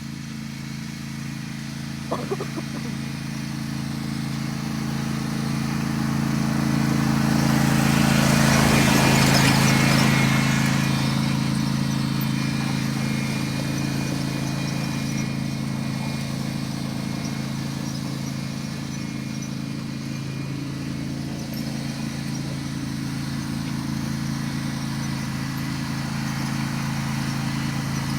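Riding lawn mower engine running at a steady pitch, growing louder as it passes close by about nine seconds in, then easing off. A brief click about two seconds in.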